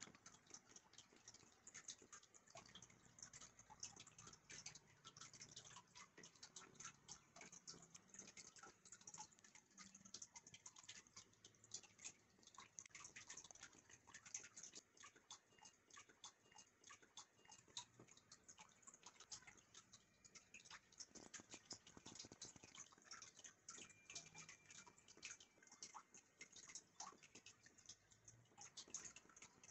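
Near silence with many faint, irregular ticking clicks.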